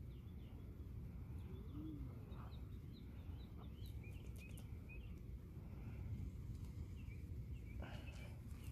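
Small wild birds chirping in short high notes over a steady low background rumble, with one low arched coo about two seconds in and a few sharp clicks near the end.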